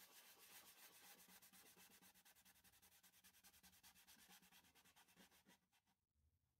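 Hand rubbing the inside of a macrocarpa pine bowl in quick, even strokes, a faint scratchy sound. The strokes fade and stop about six seconds in.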